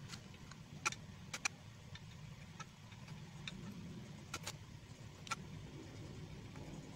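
Light, sharp clicks and taps of metal tweezers and a soldering iron tip against a router circuit board and its components during desoldering, about six scattered ticks, some in quick pairs. A steady low hum runs underneath.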